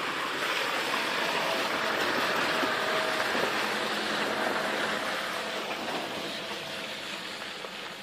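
A car passing slowly along a dirt forest track: tyre and engine noise that swells over the first couple of seconds, then gradually fades away.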